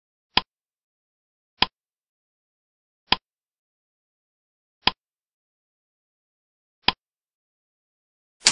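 Countdown timer sound effect: five short ticks, one for each number from five down to one, spaced one to two seconds apart with silence between. At the very end comes a louder, slightly longer sound as the answer is revealed.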